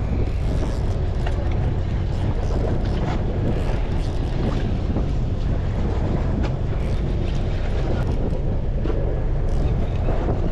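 Steady wind buffeting the microphone over the low rumble of a fishing boat at sea, with a few small knocks.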